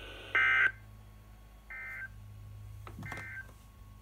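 Three short touch-tone (DTMF) beeps heard over a weather radio broadcast, each about a third of a second long and roughly a second and a half apart. The first is the loudest, and there is a brief click just before the third. A faint steady hum lies underneath.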